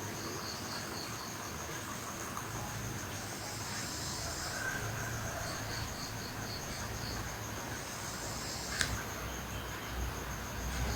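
Insects chirping steadily in high-pitched pulsed trills, with one sharp click about nine seconds in.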